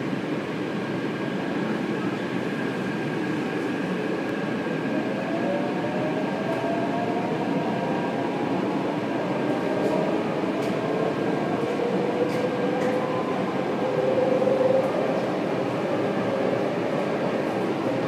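Taipei Metro Red Line train heard from inside the car as it pulls away from a station and gathers speed. A steady running rumble carries whining tones that slowly rise in pitch as the train accelerates, with a few faint clicks.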